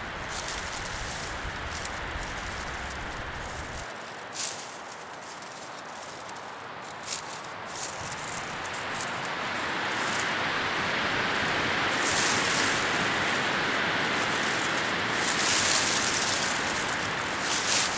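Leaves rustling continuously in the wind, swelling louder for a while past the middle, with a few brief sharp crackles.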